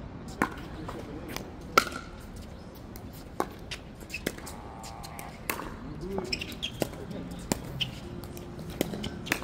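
Pickleball paddles hitting a plastic ball, with the ball bouncing on the court during a rally: a dozen or so sharp, irregular pops. The loudest comes a little under two seconds in.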